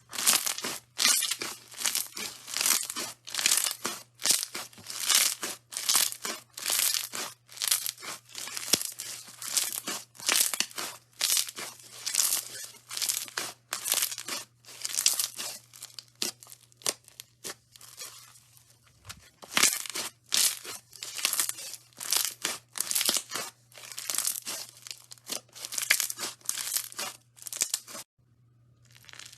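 Hands squeezing and pressing slime, giving crackly, crinkling pops in a steady rhythm of about two squeezes a second, over a faint steady low hum. The squeezing stops briefly near the end.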